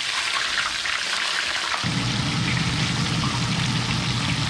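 Fish deep-frying in hot oil in a skillet: a steady sizzle full of small crackles and pops. About two seconds in, a low steady rumble joins it underneath.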